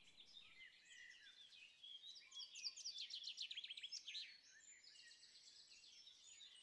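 Faint birdsong: small birds chirping in short, high notes, with a fast trill of repeated chirps about three seconds in.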